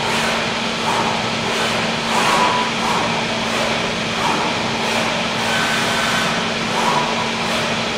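Zünd G3 digital flatbed cutter running as it cuts pre-printed sheets: a steady hiss with a constant low hum, and short whirring tones about once a second as the tool head moves around the table.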